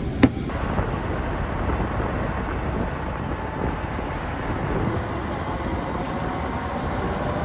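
A short sharp knock, then the steady rumble of a bus on the move, heard from inside its cabin.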